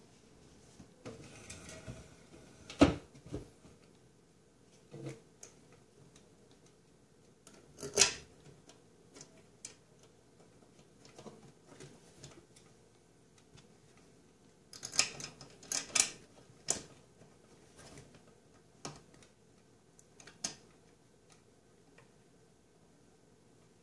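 Scattered clicks and knocks of a corrugated flexible P-trap and its plastic coupling being handled and fitted onto a garbage disposal's discharge outlet. The sharpest click comes about three seconds in, another near eight seconds, and a quick cluster of clicks around fifteen to seventeen seconds.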